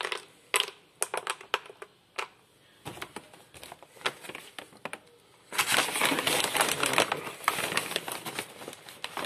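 Dry dog kibble clicking into a plastic slow-feeder bowl a few pieces at a time, then a dense, continuous rattle of kibble in the bowl from about five and a half seconds in.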